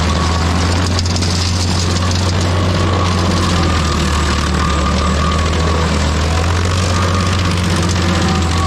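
Stump grinder running steadily: a deep, unbroken engine drone with a continuous hiss over it.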